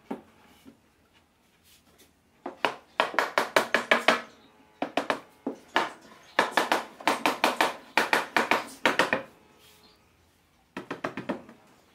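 Mallet tapping on the wooden side of a tray being assembled, seating the side boards, in four quick runs of light taps at about eight a second.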